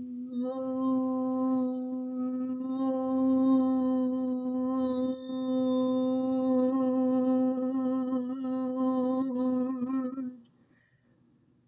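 A cappella voice holding the song's final note for about ten seconds, one steady pitch with a slight waver, then stopping about ten and a half seconds in.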